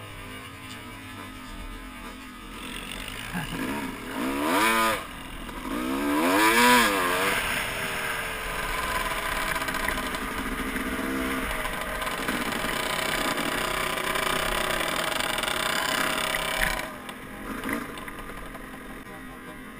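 Dirt bike engine revving hard twice, its pitch rising and falling, then running steadily at speed before easing off near the end.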